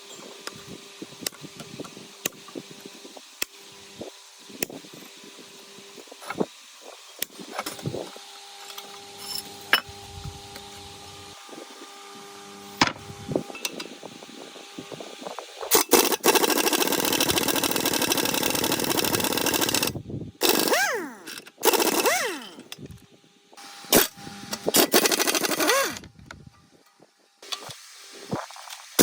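Workshop work sounds: scattered light taps and clicks over a faint hum, then about halfway in a loud power tool runs in several bursts of a few seconds each, stopping and starting.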